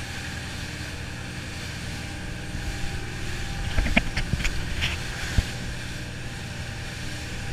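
Motorboat running at speed, its engine droning steadily under the rush of wind and churning water. A few sharp knocks and splashes come in the middle as spray flies over the stern.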